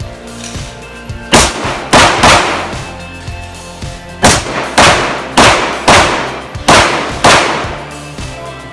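A string of pistol shots from a Glock 17 set up for USPSA Open division and firing 9mm major loads. There are three quick shots, a pause of about two seconds, then six more evenly paced, with background music underneath.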